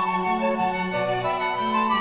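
Instrumental background music: a melody of held notes moving over a lower line of notes.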